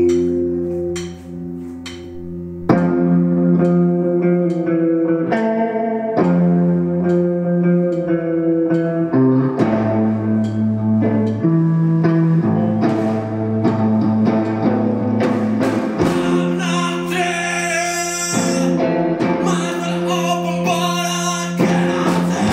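Live rock music from an electric guitar and a drum kit, loud and full after a quieter opening of about three seconds.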